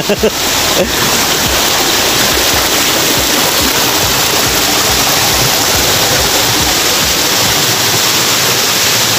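Mountain stream rushing over boulders and small cascades: a loud, steady rush of water.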